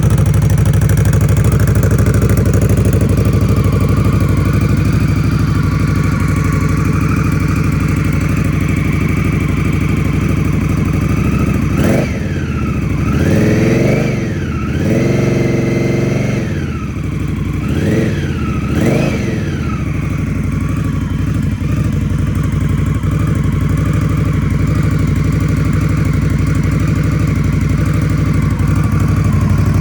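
2024 Indian Scout Rogue's liquid-cooled V-twin idling through S&S Grand National slip-on exhaust pipes. About twelve seconds in it is revved several times over some eight seconds, once held briefly at the top, then drops back to a steady idle.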